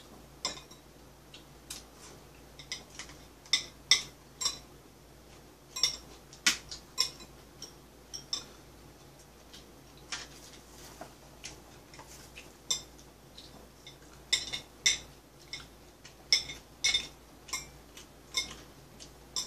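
Chopsticks clicking and tapping against ceramic plates and bowls during a meal, in irregular sharp taps, sometimes in quick pairs or small clusters.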